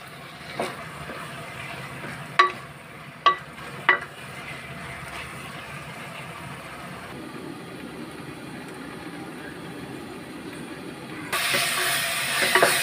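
Wooden spatula knocking against an aluminium pan four times while onion paste with green chillies and curry leaves fries in oil, over a low background. Near the end a sudden loud sizzle of frying oil starts as the stirring goes on.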